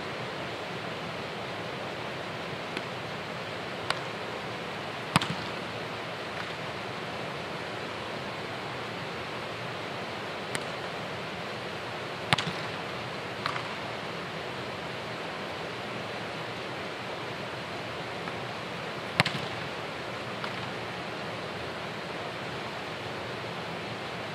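Soccer ball being kicked and landing in a large indoor turf hall: several sharp, echoing thumps, the loudest about five, twelve and nineteen seconds in, over a steady rushing background noise.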